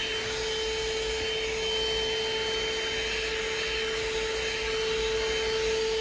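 THISWORX 12-volt handheld car vacuum running steadily, with a high, even whine over a rushing hiss of air, as it vacuums through its hose and brush attachment.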